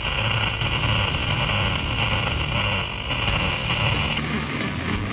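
MIG welding arc on aluminium: 0.045 in 5356 wire in 100% argon, fed by a Fronius TransSteel 2200 inverter on 230 V, burning along a 1/8 inch lap joint with a steady hiss over a low hum. The hiss shifts higher about four seconds in.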